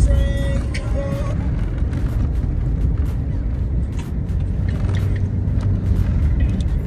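Music with a heavy bass line over a low, steady rumble, with a short held tone that breaks once in the first second.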